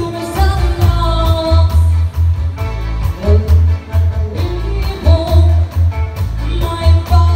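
Live band playing an upbeat pop song: a woman sings into a microphone over electric bass, electric guitar, keyboard and drums, with a heavy steady beat.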